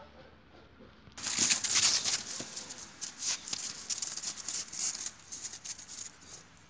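Footsteps crunching and scuffing on crusted, icy snow: a dense run of crisp crunches that starts about a second in and dies away near the end.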